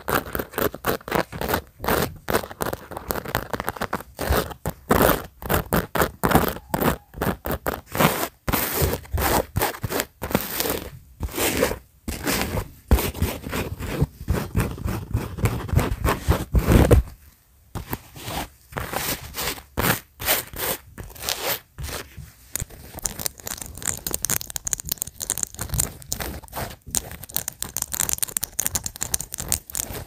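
Fingernails scratching, scraping and rubbing a fabric baseball cap and its beaded rhinestone appliqué, in quick, dry, irregular strokes close to the microphone. About seventeen seconds in there is a louder, duller rubbing, then a brief pause before the lighter scratching resumes.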